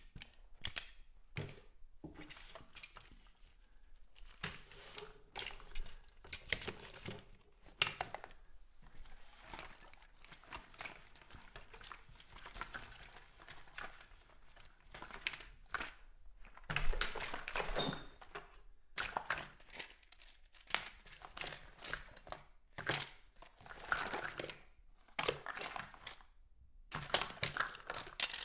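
Someone rummaging through a bathroom cupboard: items being moved about make irregular knocks, clicks and rustling, with a louder clatter about two-thirds of the way through.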